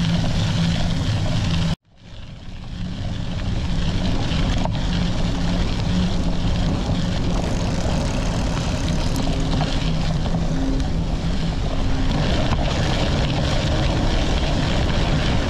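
Wind rushing over the microphone and the hum of a knobby bicycle tyre rolling on a dirt road while riding. The sound cuts out about two seconds in and swells back up over the next second or two.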